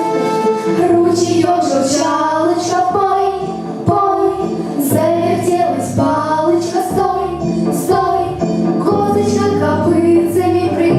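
Vocal ensemble of female voices singing a song together, with instrumental accompaniment underneath.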